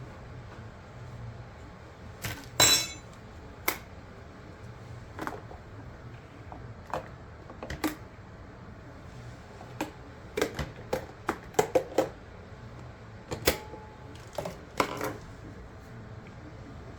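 Dishes and kitchenware being handled: irregular clinks and knocks, with one louder ringing clatter early on and a quick run of knocks later.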